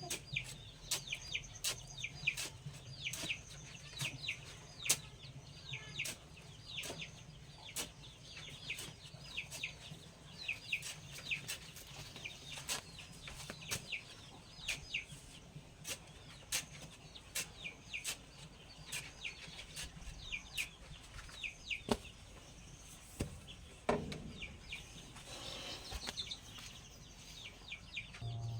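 Chickens calling: a dense run of short, high peeps, with scattered sharp clicks and a lower call about twenty-four seconds in.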